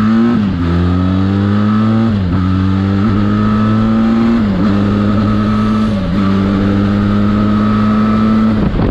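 Benelli TRK 502X's 500cc parallel-twin engine accelerating from a standstill up through the gears. The pitch climbs and drops at five quick upshifts, then holds steady at cruising revs.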